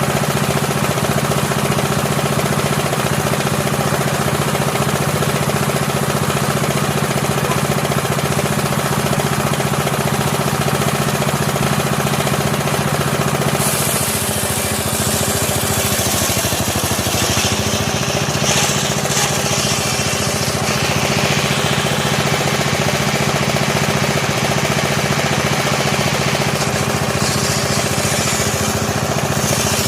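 Powered sawmill saw running steadily. About halfway through, a loud high hiss joins as the blade cuts into a teak stump, and the machine's hum drops slightly under the load.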